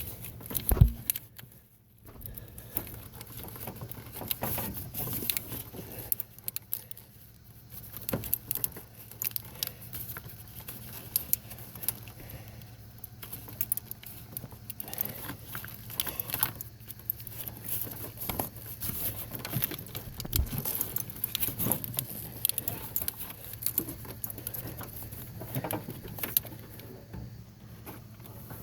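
Hands working a plastic wire cover into a metal AC line quick-connect fitting: irregular small clicks, taps and scrapes as it is wiggled in to push back the coupling's spring. A steady low hum runs underneath.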